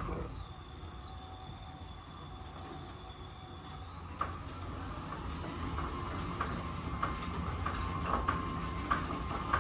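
Merlin garage door opener motor running, driving a sliding garage door along its overhead track, with a steady whine that rises in pitch about four seconds in as the door speeds up. Light clicks and rattles come from the drive and track.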